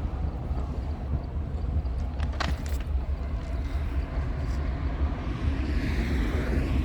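Low, steady rumble of diesel freight locomotives running nearby, with a brief metallic rattle about two and a half seconds in.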